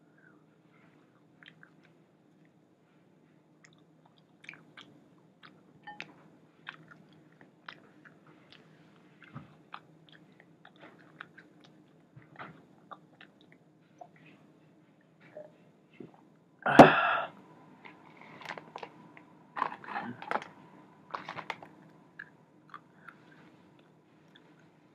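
A person chewing and biting into spicy hot chicken wings: small wet clicks and crunches throughout. About two-thirds of the way through comes one loud sudden burst, followed by a few shorter noisy bursts.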